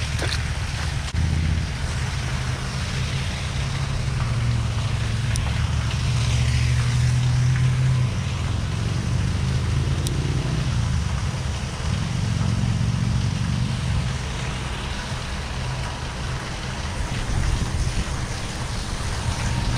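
Wind buffeting the microphone: an uneven low rumble with a hiss above it.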